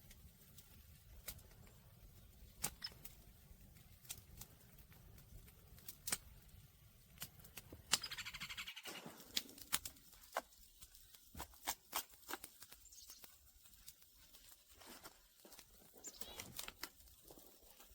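Scattered sharp snaps and crackles of willow and alder twigs and brush being handled, with a short bird call about eight seconds in.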